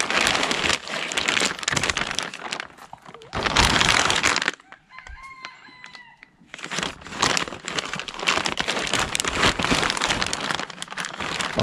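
Plastic wrapping and cardboard packaging crinkling and rustling as a new part is unpacked. In a lull near the middle, a rooster crows once in the background.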